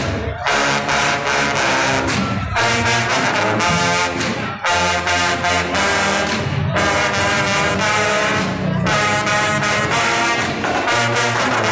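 A marching band's brass section plays held chords in phrases, with short breaks about every two seconds.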